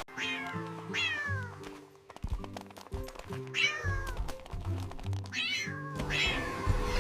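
Several falling cat meows, each under a second long, over a dance music track with a stepping bass line.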